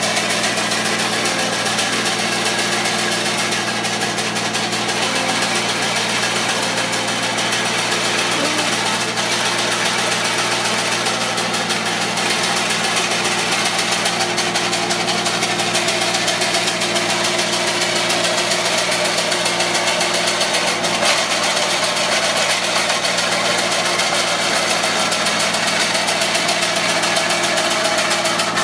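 Avant 635 compact loader's diesel engine running steadily, with the fast, even clatter of the Slanetrac hedge trimmer's reciprocating cutter bar working.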